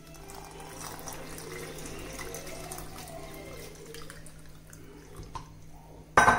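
Water poured in a steady stream from a glass jug into a stainless-steel mixer-grinder jar of rice flour and cooked rice. A short, sharp knock comes near the end, the loudest sound here.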